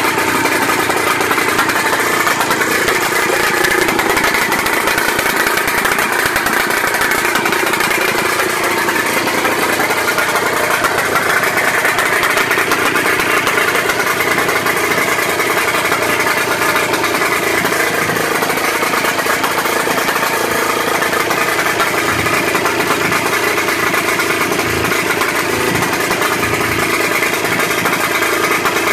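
Johnson POLR-15 22 hp outboard's two-cylinder two-stroke engine running steadily.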